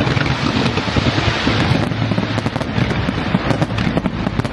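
Fireworks display: a dense, continuous barrage of rapid bangs and crackling, loud throughout with no let-up.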